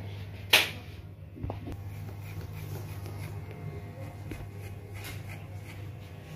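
Electric hair clipper buzzing steadily as it fades short hair at the nape of the neck. One sharp click about half a second in, the loudest sound, with a few light ticks after it.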